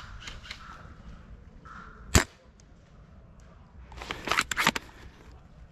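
VSR-type bolt-action airsoft sniper rifle firing once with a sharp crack about two seconds in, then a quick run of clicks about four seconds in as the bolt is worked to re-cock it.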